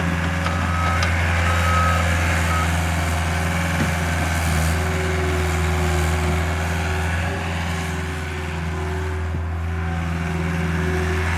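Caterpillar skid steer's diesel engine running steadily, with its reverse alarm beeping about once a second, then stopping about two and a half seconds in.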